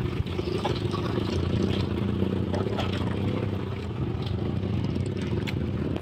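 Motorcycle engine running steadily on the move, heard from the bike itself.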